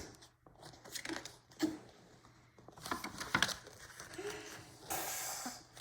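Soft rustling and handling of paper book pages, with a longer rustle near the end as a page is turned.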